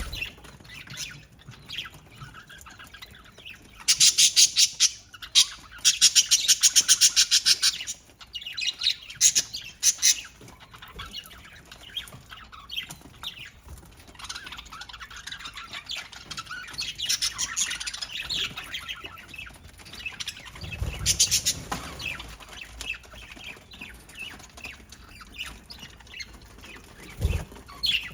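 Budgerigars chirping and chattering, with loud bursts of rapid, fast-repeating squawking about 4 to 8 seconds in and again around 10 seconds. About 21 seconds in comes a loud, short rustling burst.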